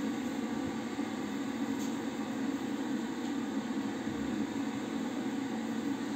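Bathroom extractor fan running with a steady, even noise.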